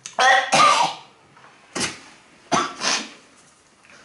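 A man coughing and gagging in about five harsh bursts, the first two loudest, as he forces down a gulp of cat food mixed with mayonnaise.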